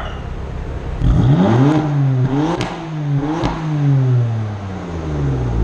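BMW F80 M3's S55 twin-turbo straight-six on its stock exhaust with the flaps open, idling and then blipped up several times in quick succession. Each rev is marked by a short sharp crack at its peak, then it falls back steadily toward idle.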